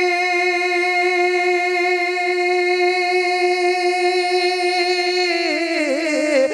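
A man's unaccompanied singing voice, reciting a naat, holds one long steady note on the last syllable of "Nabi". Near the end it breaks into a wavering, ornamented run.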